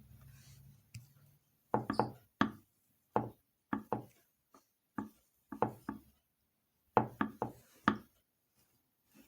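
Sharp knocks on a hard surface in a kitchen, about fifteen in all, coming in uneven clusters of two or three from about two seconds in, with a faint low hum before them.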